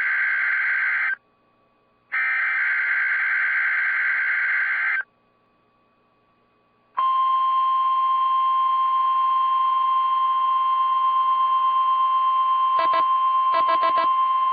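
NOAA Weather Radio emergency alert opening with SAME header data bursts, a raspy, buzzing digital screech sent twice with a short gap between. About seven seconds in, the steady, high 1050 Hz warning alarm tone begins and holds, broken by a few short crackles near the end.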